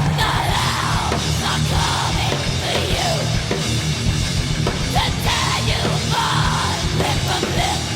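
Thrash metal song playing back loud: distorted guitars, drums and shouted vocals.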